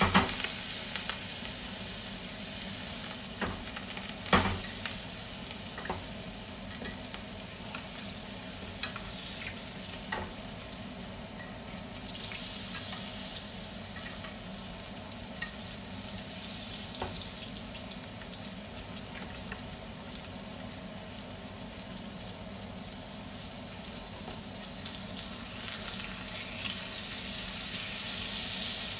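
Steak frying in butter in a cast-iron skillet, a steady sizzle, with a few sharp clinks of metal utensils against the pan while it is basted, the loudest about four seconds in. The sizzle grows a little louder near the end.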